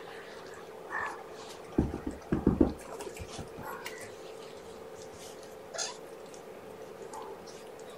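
Young kittens, about three weeks old, mewing a few times over a steady low hum, with a loud cluster of dull thumps about two seconds in.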